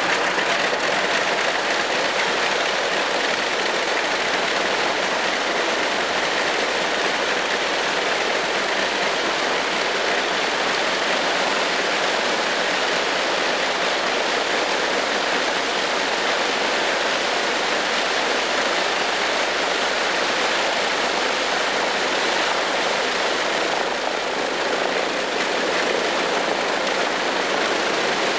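Wright R-3350 eighteen-cylinder radial engines of a Lockheed L-1049 Super Constellation running steadily just after start, a loud dense engine noise that holds level throughout.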